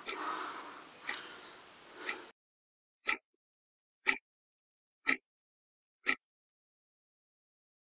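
Red Citizen quartz alarm clock ticking once a second. The first ticks sit under a hiss of room noise that cuts off about two seconds in, leaving four clear ticks alone.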